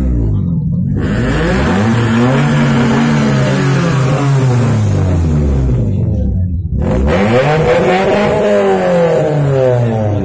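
A vehicle engine revved up and down over and over, its pitch climbing and falling in long swells of a few seconds each.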